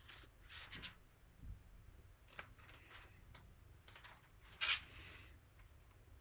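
Pages of a paperback book being handled and turned: a few faint paper rustles, the loudest about three-quarters of the way through.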